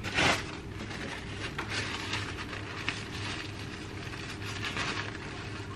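Chopsticks stirring food in a bowl: soft, irregular scrapes and light clicks against the bowl, over a steady low hum. A short, breathy burst of noise comes right at the start and is the loudest moment.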